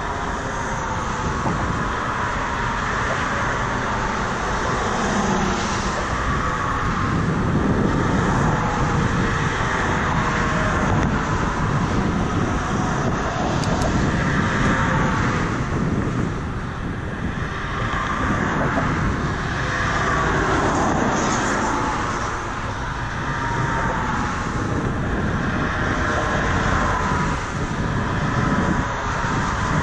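Steady rushing traffic noise with wind, heard while riding a bicycle, swelling and fading as vehicles pass.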